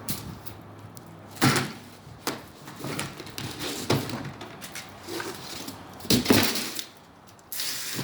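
A large cardboard shipping box being handled and opened: a series of knocks and thumps, the loudest about six seconds in, and a short scraping rustle of cardboard near the end.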